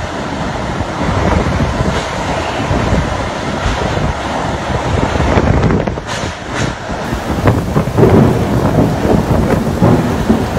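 Strong cyclone wind gusting with heavy driving rain, the gusts buffeting the microphone.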